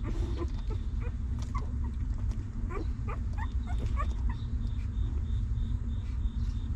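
Newborn puppies whimpering: a string of short, high squeaks, some sliding up or down in pitch, over the first four seconds or so, above a steady low rumble.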